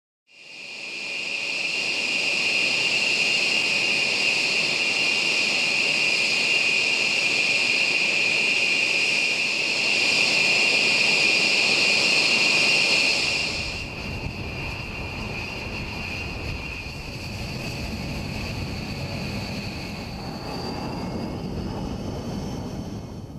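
Jet engines of a B-1 Lancer bomber (General Electric F101 turbofans) running on the ground: a loud, steady high-pitched whine over a rushing hiss. About halfway through the sound switches to a deeper rumble with the whine fainter, and a tone rises slightly near the end.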